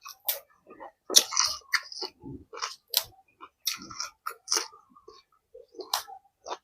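Close-miked chewing and biting of food, a string of short, irregular crunching and smacking sounds.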